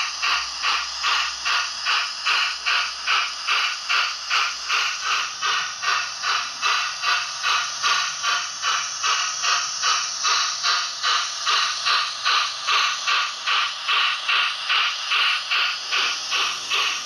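Hornby OO-gauge A4 'Sparrowhawk' model's DCC sound chip playing steam locomotive exhaust chuffs through its small onboard speaker. The chuffs come in a steady slow beat of about two and a half a second as the model runs at low speed.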